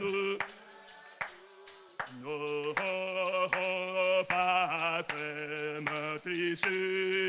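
A man's voice singing a slow French hymn in long held notes. The singing drops away briefly about half a second in and picks up again about two seconds in.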